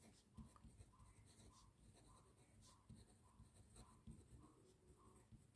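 Faint pen writing on paper, in a string of short strokes.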